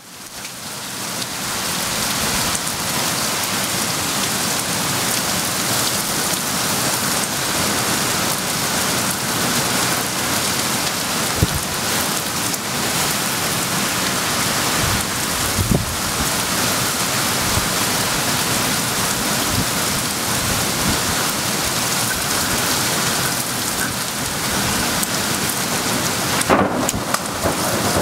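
Torrential rain pouring onto a flooded street: a dense, steady hiss that fades in over the first second or so, broken by a few short cracks of thunder, the sharpest near the end.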